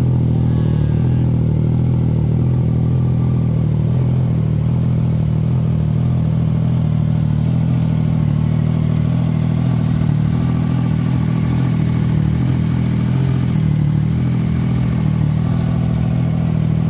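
Triumph Trident 660 inline three-cylinder engine idling steadily through a newly fitted IXIL full exhaust system, headers to canister.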